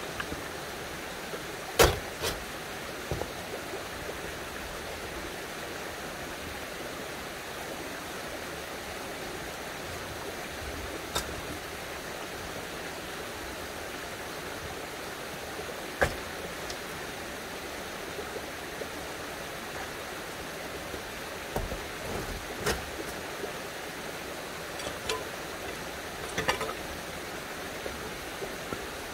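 Stones clacking against each other now and then as they are set by hand into a dry stone wall, about a dozen sharp knocks. Under them is a steady rush of running water.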